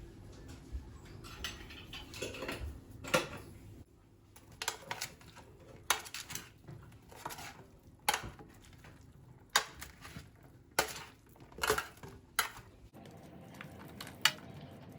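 Kitchen utensils and dishes clinking and knocking, a string of separate sharp strikes every second or two.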